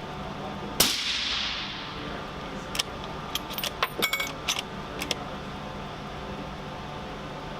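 A single suppressed .308 rifle shot through a TX Silencer Co. Hunter suppressor on a Savage Model 110: a sharp crack with a short hissing tail about a second in, quiet for a rifle. About two seconds later the bolt is worked, a quick run of metallic clicks and clacks.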